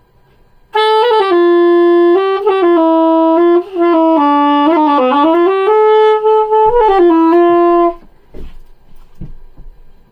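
Straight soprano saxophone playing a short improvised phrase of held notes and quick runs for about seven seconds, stopping abruptly. A couple of low thumps follow.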